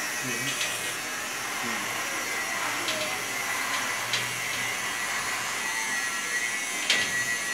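Steady hiss with a few light clicks, the sharpest near the end.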